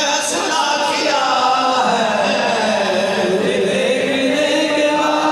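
A man's voice chanting devotional verse in a slow, drawn-out melody, with long held notes that slide up and down in pitch, sung into a microphone.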